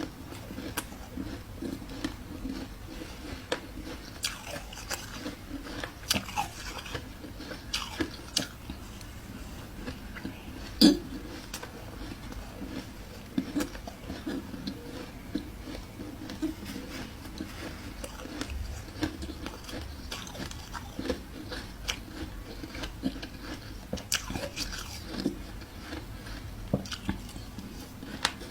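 Close-up biting and chewing of soft white ice: a string of irregular crunches, one much louder than the rest about eleven seconds in.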